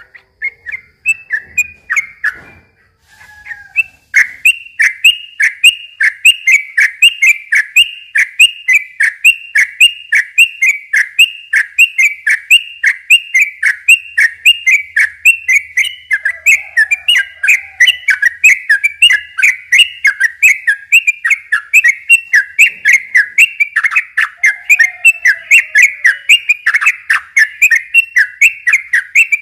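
Male yellow-vented bulbul (trucukan) singing its long, rapid-fire song: a fast run of repeated whistled notes, about three a second, resuming after a short break about four seconds in.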